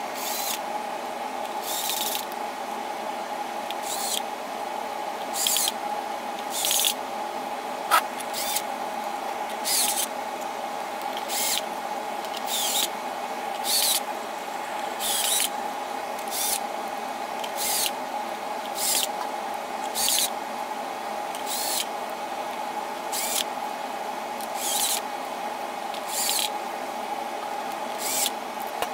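Black & Decker cordless drill-driver running with a steady whine while driving screws into a circuit board. A short, high squeak repeats a little over once a second.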